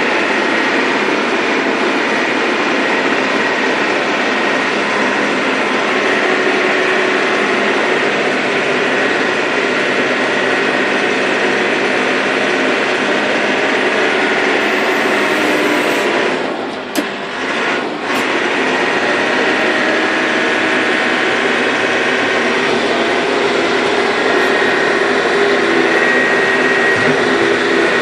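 Cat 416C IT backhoe loader's diesel engine running steadily at working speed while the machine is operated, with a brief dip in level about two thirds of the way through.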